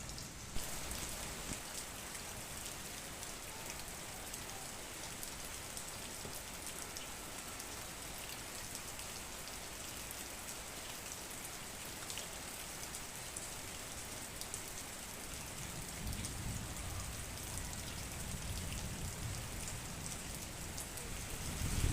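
Steady rainfall, a continuous patter of drops on surfaces.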